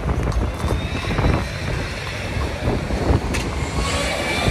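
Wind buffeting the microphone over the steady noise of city street traffic.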